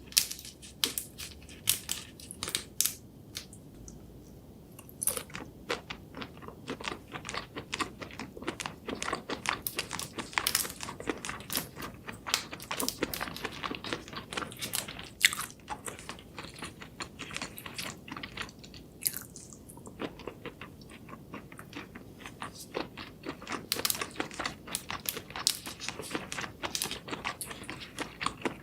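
A person chewing and biting seafood close to the microphone: dense wet crunches and mouth clicks in runs, with a couple of short pauses.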